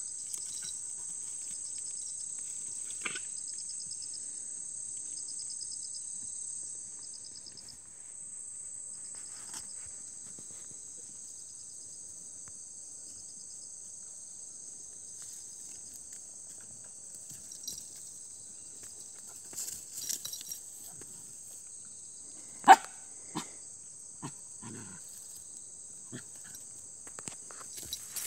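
Steady high chorus of crickets and other insects, pulsing for the first several seconds, with faint rustling and scuffing. A single sharp, short dog bark stands out loudly about twenty-three seconds in, followed shortly by a brief low grunt-like sound.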